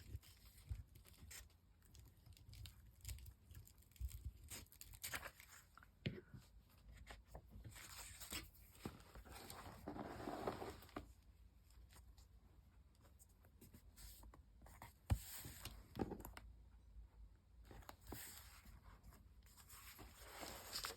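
Faint paper handling: a glue stick rubbed across the back of paper cut-outs in a few longer scraping strokes, among scattered light taps and rustles of paper.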